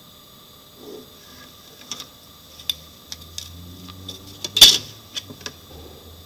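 Drawing instruments handled on a drawing board: a run of light clicks and taps, with one louder knock about four and a half seconds in.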